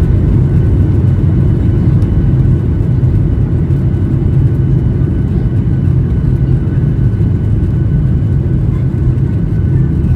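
Boeing 737-800's CFM56-7B jet engines running, heard from inside the passenger cabin: a loud, steady, deep rumble with a faint high whine above it.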